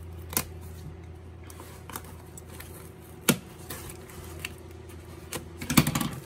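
Hands handling a cardboard box and paper slips on a wooden table: a few sharp knocks and rustles, the busiest cluster near the end, over a steady low hum.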